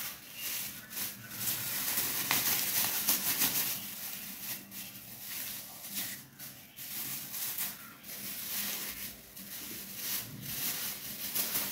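Thin clear plastic disposable gloves and their plastic bag crinkling and rustling in uneven spurts as they are taken out and pulled onto the hands.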